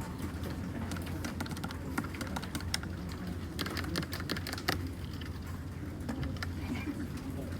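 Typing on a Dugard x Thinkway Tochef mechanical keyboard with red linear switches: irregular keystrokes in quick runs, thickest about halfway through, over a faint steady low hum.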